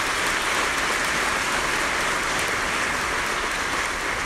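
Audience applauding, many hands clapping steadily and tapering off slightly near the end.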